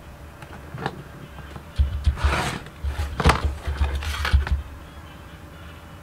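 Rotary cutter run along an acrylic quilting ruler through fabric on a cutting mat, cutting a square in half on the diagonal: a light tap about a second in, then scraping strokes with low thuds of the ruler on the mat from about two to four and a half seconds in.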